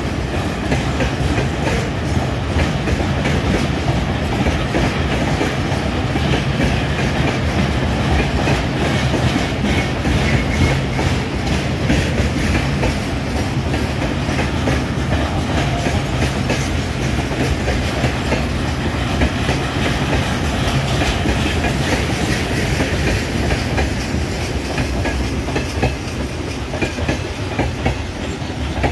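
Freight train of steel tank wagons and open gondola wagons rolling past at close range: a steady rumble of wheels on the rails with a continuous clickety-clack as the bogies cross the rail joints.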